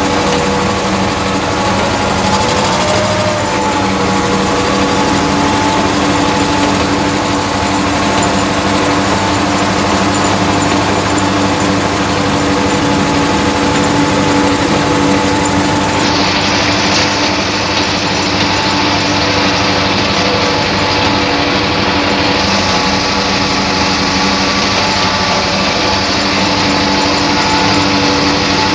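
Farm tractor engine running steadily under load while the tractor pulls through potato rows. It is heard from the driver's seat, right behind the upright exhaust pipe.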